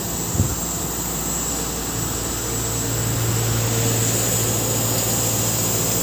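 Mitsubishi Heavy Industries VRF outdoor unit running: a steady fan drone with a low hum from the compressors, growing a little louder about two and a half seconds in.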